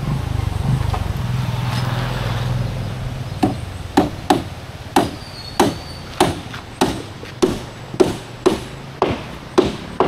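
An engine hums steadily and fades out over the first few seconds. Then comes a run of about a dozen evenly spaced blows from a striking hand tool, a little under two a second, each with a short ring.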